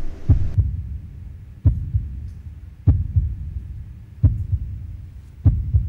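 Slow heartbeat sound effect: five low double thumps, lub-dub, about 1.3 seconds apart, over a low hum.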